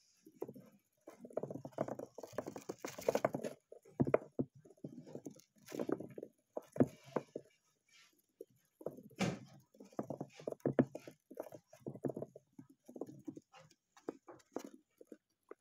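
A dwarf hamster's paws scrabbling and pattering across a plastic floor close to the microphone, in irregular bursts with a few sharp knocks.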